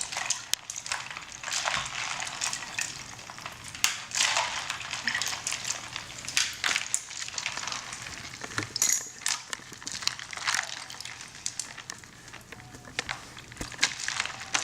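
Blanched broccoli and ice cubes scooped out of ice water into a colander: ice clicking and rattling, with water splashing and draining through in uneven rushes.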